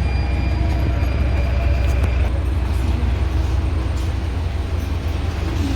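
Engine of an airport apron shuttle bus, a steady low rumble heard from inside the passenger cabin, with a faint high whine over it for the first two seconds.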